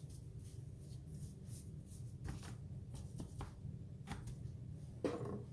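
Faint, scattered scratchy rustles and light taps of seasoning being shaken and spread by hand onto raw turkey cutlets, over a steady low hum.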